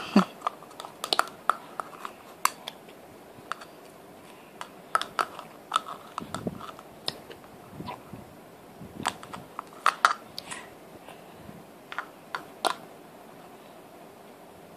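Plastic spoon tapping and scraping inside a clear plastic cup, an irregular string of sharp clicks and knocks, some with a short ring.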